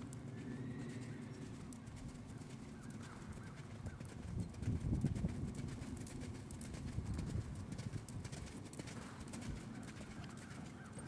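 Hoofbeats of a young Holsteiner/Thoroughbred mare moving under saddle on sand arena footing, a dull rhythmic thudding that is loudest about five seconds in. Faint bird chirps sound now and then.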